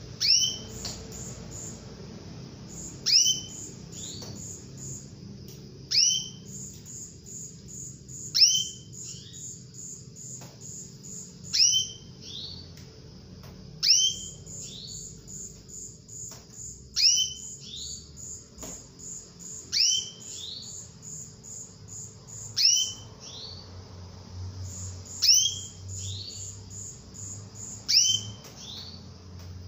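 Female canary repeating a sharp, downward-sliding call about every two to three seconds, the call a hen uses to draw a male. A faint, rapid, high-pitched pulsing runs underneath.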